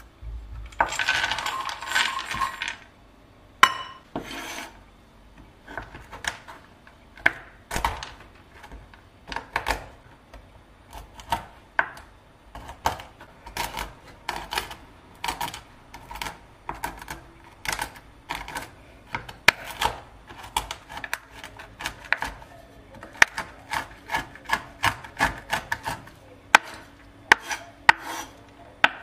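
Whole almonds poured from a metal measuring cup onto a bamboo cutting board, a rattling patter for about two seconds. Then a large knife chops them coarsely in irregular strokes, each a sharp knock of the blade on the wooden board as the nuts crack, coming in quicker runs near the end.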